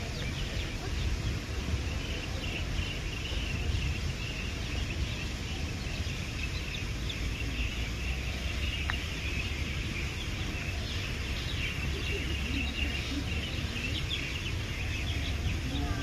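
Outdoor ambience: many small birds chirping continuously over a steady low rumble.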